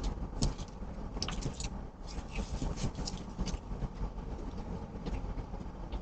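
Outdoor background noise: a low rumble with scattered light clicks and ticks at irregular intervals.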